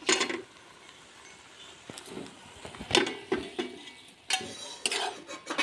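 Scattered metallic clinks and knocks of an aluminium kadai and its spoon being handled as the pan is taken off the heat: a few at the start, a quiet couple of seconds, then several more from about three seconds in.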